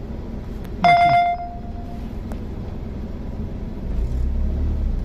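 A single bright ringing tone about a second in, fading away within about a second, over the steady low rumble of the car's engine and road noise; the rumble swells near the end.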